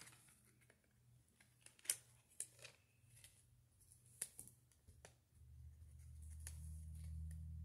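Faint scattered clicks and rustles of a plastic CD jewel case being handled and its paper booklet leafed through. A low steady hum comes in about five seconds in.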